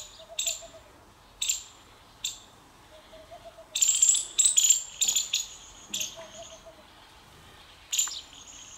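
Small birds chirping in short, sharp bursts, thickest about four to five seconds in and again near the end. A faint low pulsing call repeats a few times underneath.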